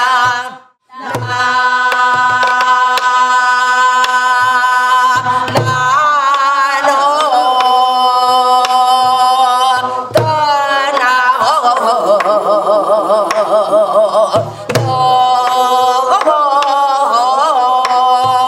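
Korean traditional music: a sustained, wavering melody over low drum strokes. It drops out for a moment just under a second in, then carries on.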